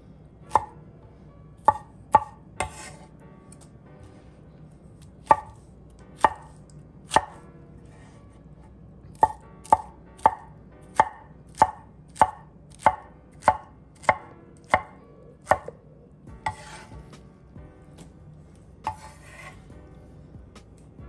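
Chef's knife dicing pineapple on a wooden cutting board: sharp knocks of the blade on the board, scattered at first, then a steady run of about one and a half chops a second in the middle. Near the end come a couple of brief scraping sounds.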